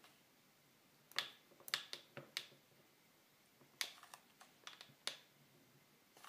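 Scattered light clicks and taps, in two short clusters, as a hot glue gun is worked over Ni-Cd AA cells sitting in a plastic battery-pack case.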